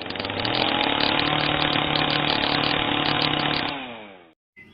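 A small engine runs steadily at high speed, then its pitch falls as it winds down near the end before cutting off abruptly.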